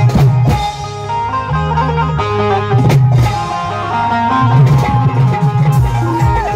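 Live band music: an electronic keyboard plays a melody over drums and percussion with a heavy bass beat.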